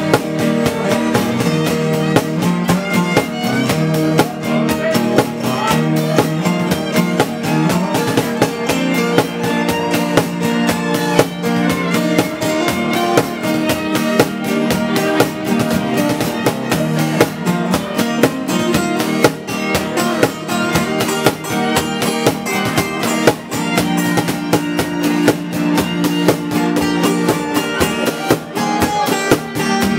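A live acoustic band playing to a steady strummed beat: acoustic guitars with a fiddle.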